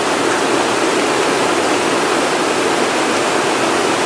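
A river rushing steadily over rapids, an unbroken roar of water.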